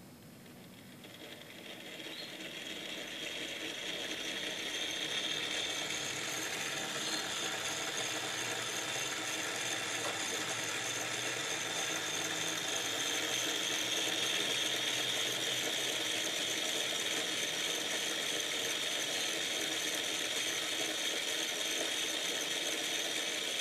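Small solar-powered electric motor and gearing of a toy windmill model running, a steady mechanical whir that grows louder over the first few seconds and then holds even.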